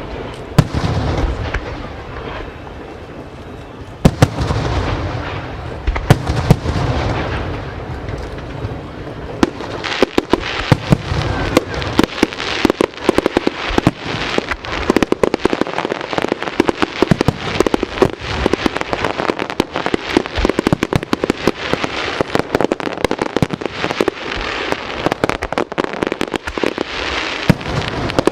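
Aerial fireworks display: a few heavy shell bursts with deep booms, then from about ten seconds in a dense, rapid barrage of sharp bangs and cracks that keeps going.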